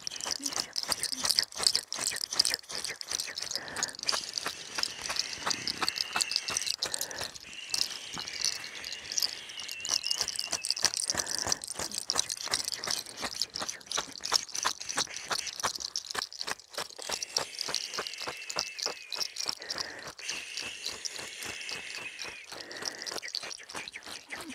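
Dense, rapid crackling and rustling of a bundle of fresh herbs and leaves swept and patted over a person's head and hair during a limpia cleansing. A high wavering whistle-like tone comes and goes several times.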